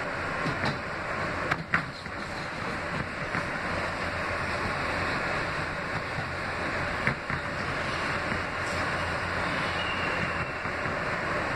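Steady running noise inside an R160B subway car moving along the track, the rumble of wheels on rail. A few sharp clicks and knocks come through about two seconds in and again about seven seconds in.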